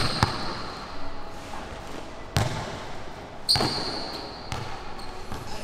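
A basketball bouncing on a court floor, a few separate hard bounces, with a short sneaker squeak along with the bounce about three and a half seconds in.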